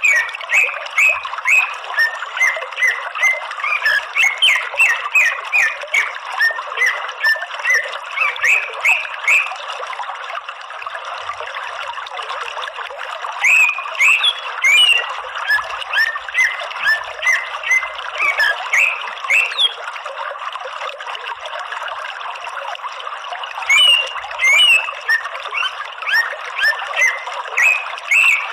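Cucak ijo (green leafbird) singing: fast runs of short, sharp chirping notes in bouts several seconds long, with two pauses of a few seconds, over a steady background hiss.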